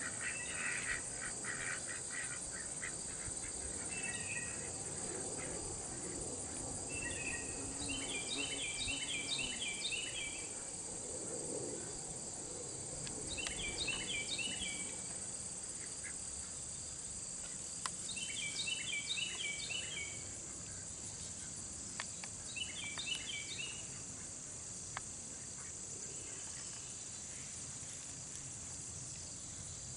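Steady high-pitched chorus of insects such as crickets, with a songbird singing a short run of rapid repeated notes four times, a few seconds apart.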